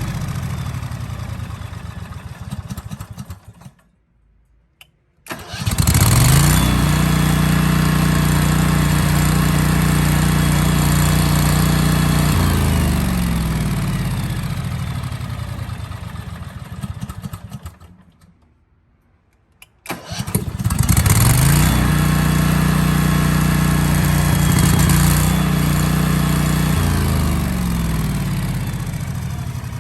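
Vanguard 14 hp gas generator engine being started, run and shut down twice. It winds down and stops about four seconds in, starts again a second later and runs steadily for several seconds, then winds down to a stop. It starts again about twenty seconds in and runs, slowing near the end.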